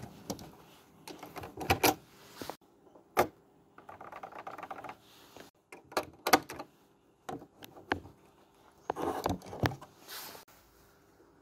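Sharp clicks and clacks from an LGA1150 CPU socket on a motherboard: the metal load plate and retention lever being worked as a processor is set in and clamped down, with soft handling rustle in between.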